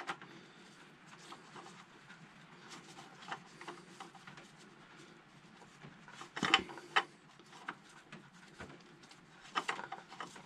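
Faint clicks and light knocks as a new spin-on oil filter is turned by a gloved hand onto its threaded stub on the engine, with a louder short cluster of knocks about six and a half seconds in and another near the end.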